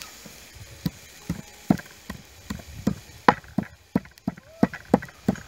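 A wooden pestle pounding garlic cloves on a wooden cutting board. It makes a series of sharp knocks, a little over two a second, coming closer together in the second half.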